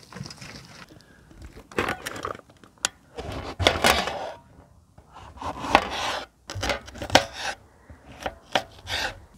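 Kitchen knife chopping a red bell pepper on a cutting board: a run of uneven knife strokes knocking against the board, with short scraping cuts between them.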